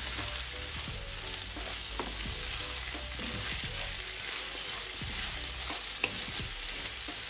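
Minced beef and prawn mixture sizzling in a non-stick frying pan while a wooden spatula stirs and scrapes through it, with a couple of light clicks of the spatula against the pan.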